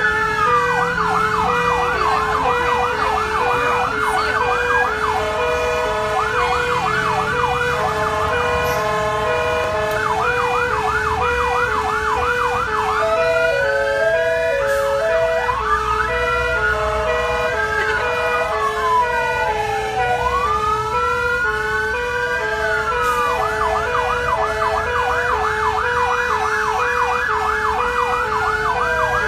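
Several fire engine sirens sounding at once: a fast yelp of about four sweeps a second and slower wails rising and falling, over a steady alternating two-tone hi-lo. Heard from inside a fire engine's cab, with low engine rumble underneath.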